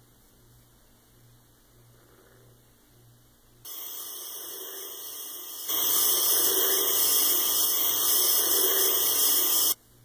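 A steady hiss, like rushing water, starts suddenly, gets much louder about two seconds later, and cuts off abruptly near the end.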